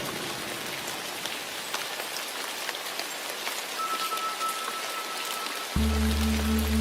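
Steady rain on a surface, an even hiss with scattered drop ticks. Near the end a low steady tone from a Tibetan singing bowl comes in abruptly and holds over the rain.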